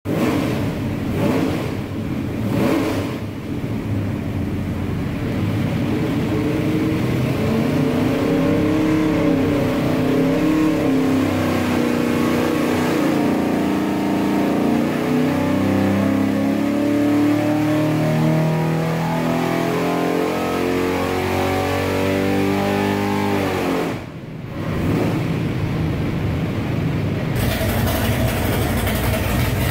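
496-cubic-inch big-block Chevy V8 marine engine on an engine dyno: a few quick throttle blips, then a long pull with the pitch climbing steadily under load, cut off sharply about 24 seconds in. Near the end it idles close to the exhaust pipe with a choppy beat at about 900 RPM, from its custom hydraulic roller cam.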